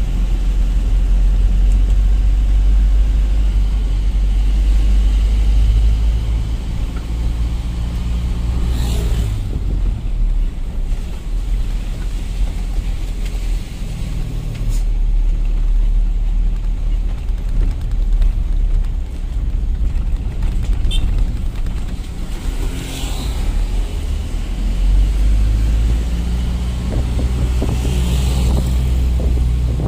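Truck engine running, heard from inside the cab while driving. The engine note shifts up and down a few times, with a few short rushes of noise.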